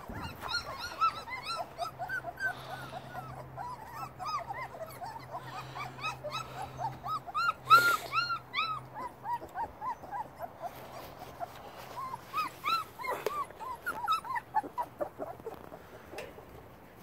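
A litter of young labradoodle puppies whimpering and squeaking, many short high-pitched cries overlapping one another. A sharp click sounds about eight seconds in.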